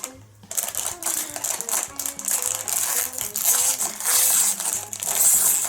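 Plastic Lego minifigure bag crinkling as it is torn open, with small Lego pieces rattling and clicking inside, over quiet background music.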